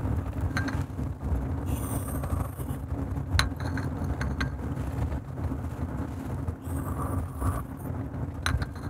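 Steady low engine and road rumble inside a moving vehicle's cabin, with a few scattered short clicks.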